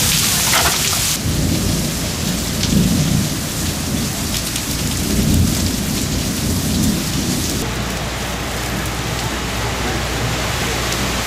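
Heavy hurricane rain and gusting wind, with low rumbling surges as gusts buffet the microphone.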